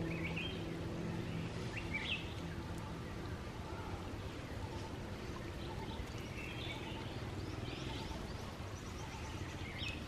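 Outdoor ambience: a steady low rushing background with a few short, high bird chirps scattered a second or more apart.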